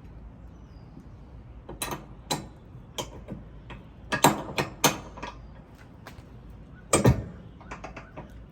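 Trailer hitch ball mount knocking loose in the receiver as it is jostled: sharp metal clanks, scattered at first, a quick run of them about four seconds in and a loud one about seven seconds in. This is the play between mount and receiver that makes the hitch rattle while towing.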